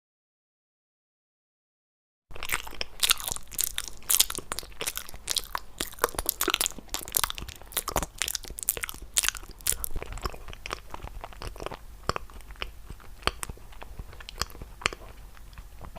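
Silence for about two seconds, then loud, close-up crunching and chewing of crisp food: dense, sharp crunches that thin out and grow softer after about ten seconds.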